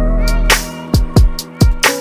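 Background music with a steady drum beat, the bass dropping out for about a second in the middle before coming back.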